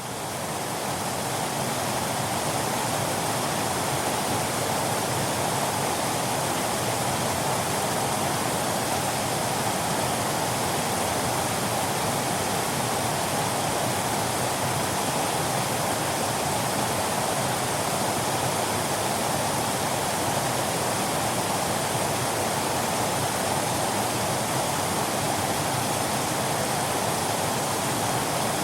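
Waterfall: a steady, dense rush of falling water that settles to full level within the first second.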